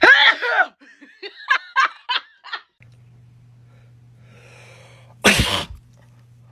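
A person sneezing and laughing: a voiced outburst at the start, a short run of laughter of about five quick bursts, then one loud, sharp sneeze about five seconds in.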